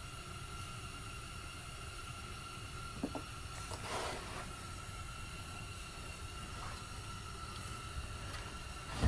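Quiet workshop room tone with a steady faint high-pitched hum, broken by a small click about three seconds in and a soft brief rustle of handling a second later.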